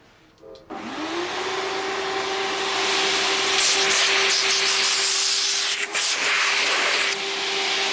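Vacuum cleaner switched on after a couple of small clicks, its motor whine rising quickly as it spins up, then running steadily with a loud rushing hiss of air.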